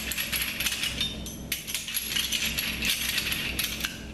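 Ratcheting torque wrench tightening the main bearing cap bolts on a 396 big-block Chevrolet crankshaft: rapid metallic clicking in runs, with a short break about one and a half seconds in.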